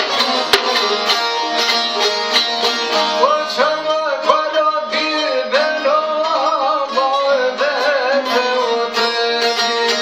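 Albanian folk music on plucked long-necked lutes (çifteli and sharki) strummed with a guitar, and a man's voice singing the melody that comes in about three seconds in.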